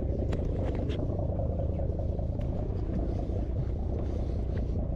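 Steady low rumble of a sportfishing boat, with a few faint clicks as a hand handles the conventional fishing reel.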